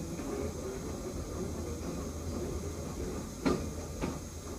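Metro train rolling slowly along depot track with a steady low rumble. About three and a half seconds in, its wheels give two sharp clacks half a second apart, the first louder.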